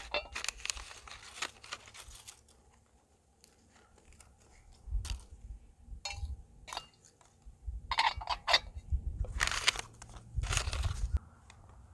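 A paper tea bag wrapper being torn open and crinkled by hand, in irregular short bursts of tearing and rustling, with a low rumble at times.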